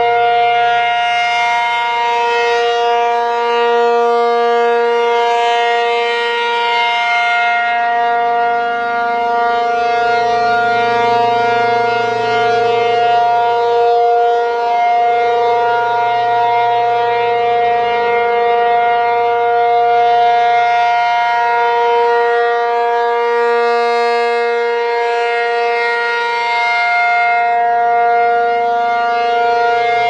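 American Signal T-135AC rotating outdoor warning siren sounding its steady alert tone. The pitch holds constant while the sound swells and fades as the horn turns toward and away, strongest in the first several seconds and again from about twenty seconds in.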